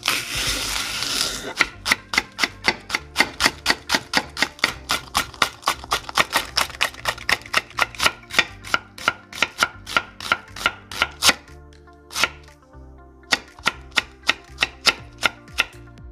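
A Misono UX10 stainless chef's knife slicing through a green onion and then an onion onto an end-grain wooden cutting board: quick, evenly spaced knife strikes against the board, about three to four a second. There is a short break about twelve seconds in before a last run of cuts. Faint background music runs underneath.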